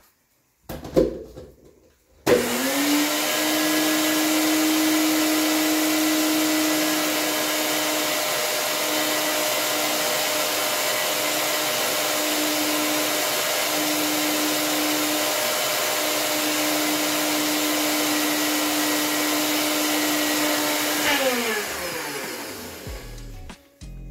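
NutriBullet personal blender motor spinning up about two seconds in, running steadily while blending egg replacer with water, then winding down near the end. A short knock comes just before the motor starts.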